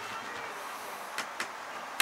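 Low background noise with two light clicks a little over a second in, as an RV window frame is handled and pressed into its cut-out in a school bus's sheet-metal side, and a sharper click near the end.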